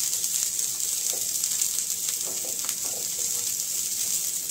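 Sliced onion, carrot, chilli and garlic sizzling steadily in hot olive oil in a nonstick grill pan, being sautéed and stirred with a spatula that gives a few light taps and scrapes against the pan.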